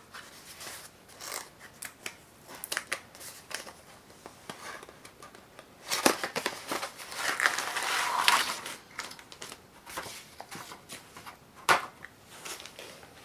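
A cardboard box being opened by hand and its contents slid out, with cardboard scraping and rustling and clear plastic bags crinkling. Small clicks and scrapes throughout, a longer, louder stretch of rustling about six to eight seconds in, and a sharp tap near the end.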